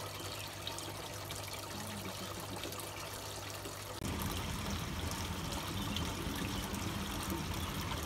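Water trickling steadily, becoming louder and fuller about four seconds in.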